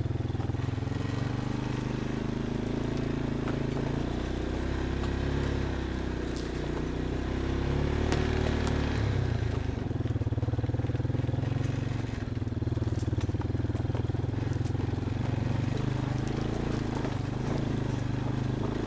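Off-road vehicle engine running steadily, its pitch shifting up and down in the middle as the throttle changes, with a few scattered clicks and knocks.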